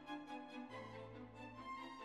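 Instrumental background music, pitched melody notes over a low bass line that shifts to a new note partway through.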